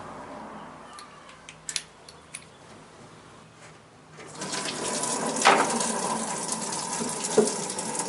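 A few light clicks, then about four seconds in, old coolant starts pouring steadily out of the radiator drain of a 1968 MGC into a catch bin, with the drain bolt just removed.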